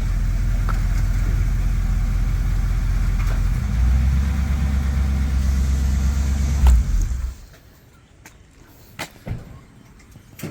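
1986 Chevrolet El Camino's engine running, a steady low rumble that grows louder about four seconds in and then cuts off suddenly about seven seconds in, leaving a few faint clicks.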